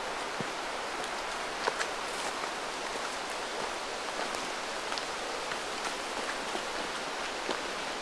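Steady rushing hiss of wet, windy forest, with scattered faint ticks and a few light footsteps crunching through leaf litter as a hiker walks past.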